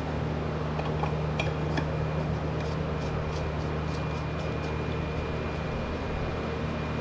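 Light clicking and clinking as the plastic oil filter cap of a 2017 Jeep Wrangler is threaded back into its housing, with a quick run of clicks in the middle, over a steady background hum.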